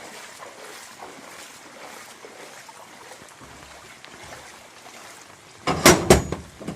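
Steady hiss of running or falling water, likely floodwater or rain. Near the end comes a loud clattering burst of about a second.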